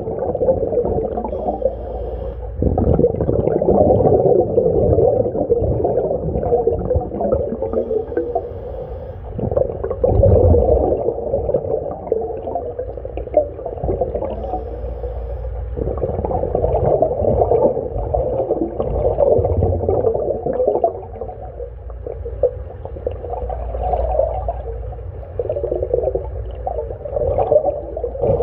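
Diver breathing underwater through a SMACO mini scuba tank's regulator: exhaled air bubbling out of the regulator, heard underwater, swelling and easing with each breath every several seconds.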